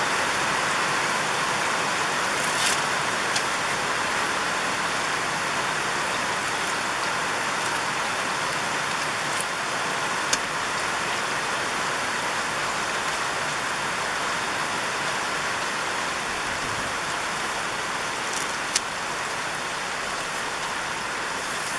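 Steady rain falling, an even hiss, with a few faint sharp clicks.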